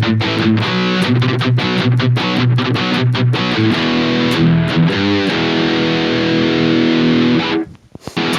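Harley Benton Fusion electric guitar played through a Fractal Audio FM9 modeler on a distorted rhythm tone: fast chopped chugging riffs, then held chords with a brief wavering bend near the middle. The playing cuts off abruptly near the end, then the chugging starts again.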